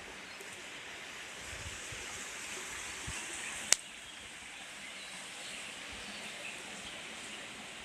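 Small river's water flowing, a steady rushing hiss. A single sharp click a little under four seconds in.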